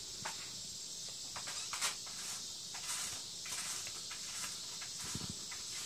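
Two kittens play-fighting on carpet: scattered soft scuffles, rustles and paw pats over a steady high hiss, with a brief louder scuffle about five seconds in.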